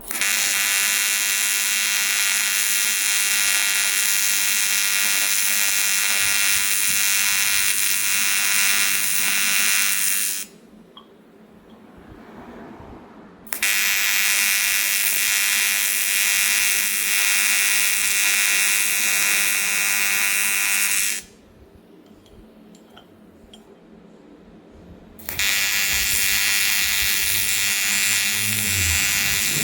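Aluminium TIG welding arc buzzing steadily, struck three times: runs of about ten and eight seconds with pauses of three to four seconds between, each starting and stopping abruptly.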